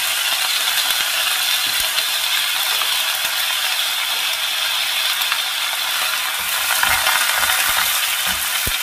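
Rice cakes, squid, cabbage and onion sizzling in hot oil in a cast-iron wok, a steady crackling hiss. Near the end a wooden spoon starts stirring, with a few knocks against the pan.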